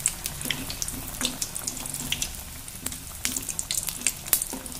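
Gram-flour-battered brinjal fritters (badanekayi bajji) deep-frying in hot oil: a steady sizzle with many quick, irregular crackling pops.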